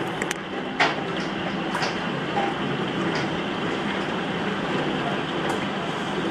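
Heavy rain falling in a thunderstorm, a steady hiss with two sharp knocks about one and two seconds in.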